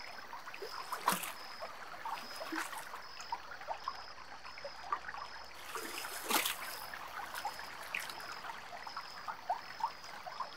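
River water trickling and bubbling, with many small plops and two sharper splashes, one about a second in and one about six seconds in. A faint high-pitched pulse repeats about twice a second throughout.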